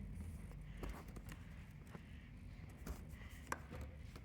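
Faint, scattered light taps and clicks from things being handled, about six over a few seconds, over a low room hum.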